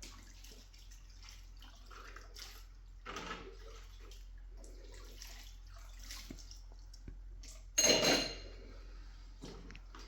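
Water splashing and dripping in irregular spurts, with one loud clatter that rings briefly, like a metal pot, about eight seconds in.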